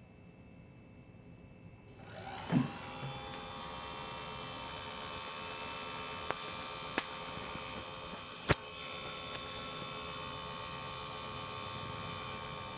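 Quadcopter's brushless motors spinning up about two seconds in under a ground-control motor test, then running with a steady high-pitched whine that steps up in level after a click partway through. The quad has a motor suspected to be bad.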